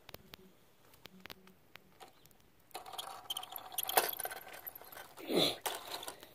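Plastic Lego landing-gear wheels and bricks clicking and scraping over rough concrete. A few faint ticks at first, then from about three seconds in a rattling scrape with a sharp click around four seconds, and a short falling sound about a second later.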